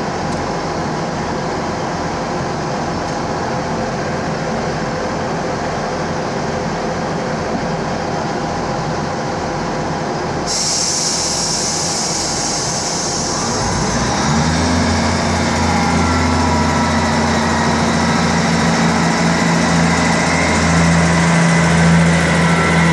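Class 158 diesel multiple unit idling at the platform with a steady rumble. About ten seconds in a sudden hiss of air starts and fades, then a few seconds later the diesel engines rev up, the note rising and then holding in a steady drone as the train pulls away.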